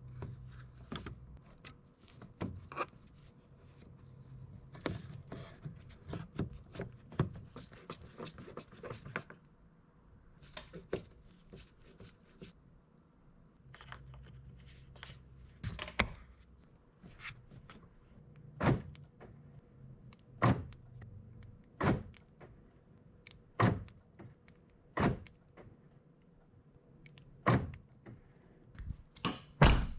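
Plastic clicks and taps of the inner door handle and trim being screwed and snapped back in. From about halfway on, a run of sharp lock thunks every second and a half or so: the newly fitted rear door lock actuator of a 2004 Honda Civic being cycled locked and unlocked to test it.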